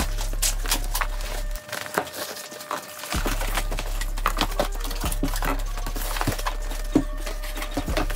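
A large cardboard monitor box being handled, lifted and set down: irregular knocks, taps and scrapes of cardboard, with crinkles of plastic wrap, over a steady low hum that drops out briefly about a second and a half in.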